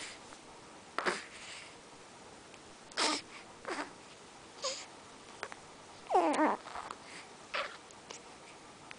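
Three-week-old baby snoring: six short snorting breaths spaced a second or two apart. The loudest, about six seconds in, is a voiced grunt that falls in pitch.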